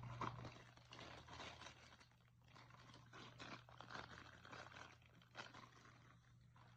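Faint, irregular scratchy rustling and crackling over a low steady hum.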